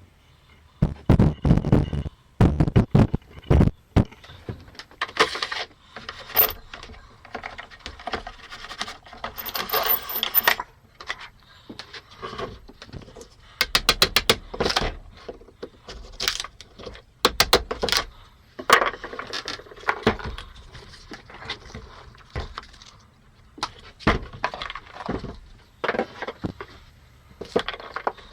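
Irregular metallic clinks, knocks and short scrapes of tools and a wooden workpiece being handled, with no motor running.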